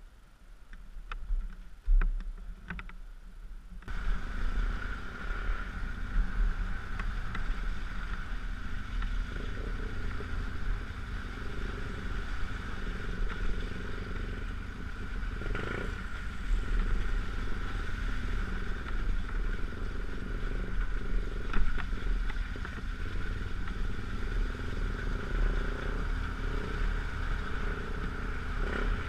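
BMW GS dual-sport motorcycle riding a muddy, rutted dirt road: steady engine drone and road noise heard from on the bike, with a few short knocks and clatters over the ruts. It starts quieter with scattered knocks, and the steady riding noise comes in about four seconds in.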